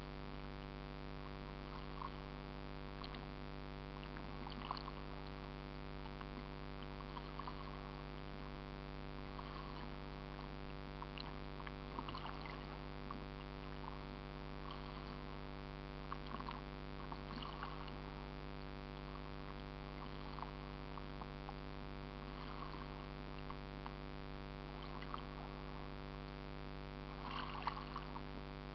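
Boat engine running steadily at one pitch, with small irregular splashes of water now and then.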